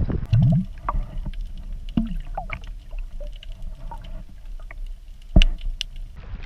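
Wind rumbling on the microphone on a fishing kayak, with scattered clicks and knocks of gear being handled against the hull and one sharp, loud knock about five seconds in.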